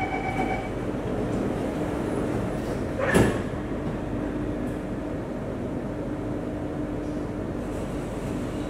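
A metro train car's sliding doors close, shutting with one sharp thud about three seconds in, just after the door-closing warning tone stops. A steady electrical and ventilation hum from the standing train continues throughout.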